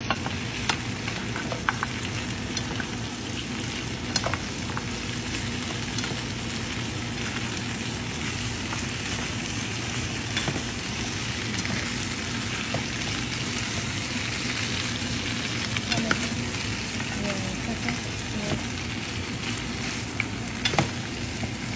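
Chunks of goat meat and lemongrass sizzling steadily as they are stir-fried in a hot pan, with a few sharp clicks from the wooden spatula and chopsticks knocking against the pan.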